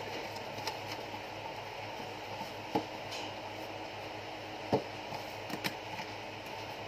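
Corrugated cardboard box being handled: flaps folded and pressed shut and the box set down on a table, giving a few short sharp knocks and taps, the loudest a little after the middle. A steady low hum runs underneath.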